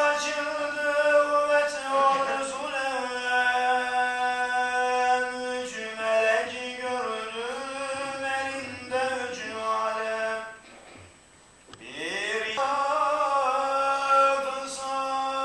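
A single male voice chanting an Islamic religious recitation, unaccompanied, in long held notes that bend slowly in pitch. He breaks off for a breath about ten and a half seconds in and takes up the chant again a second or so later.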